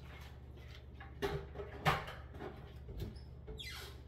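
A few light knocks of kitchen items being handled, the two sharpest a little over a second and about two seconds in, and a short falling squeak near the end, over a steady low hum.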